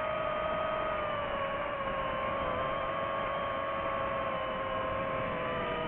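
FPV racing quadcopter's brushless motors and propellers whining steadily in fast flight. Several close motor tones sag slightly lower in pitch, then spread apart near the end as the throttle changes, over a rushing noise.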